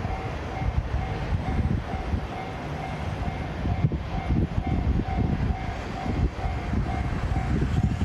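Freight train passing over a Japanese level crossing while the crossing's warning bell rings steadily, about two strokes a second.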